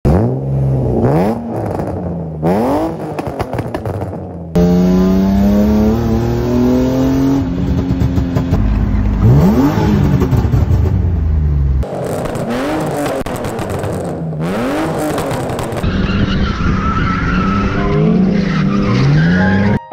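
BMW E36 328i's M52 straight-six revved hard in quick blips, then driven with rising and falling revs through gear changes. Near the end there is tyre squeal from drifting. The sound cuts abruptly between clips several times.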